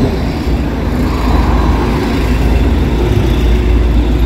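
City street traffic: a steady low rumble of passing road vehicles.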